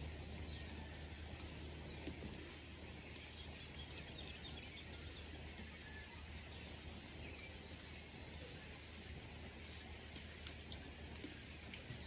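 Faint rainforest ambience: scattered, distant short bird chirps over a steady low hum.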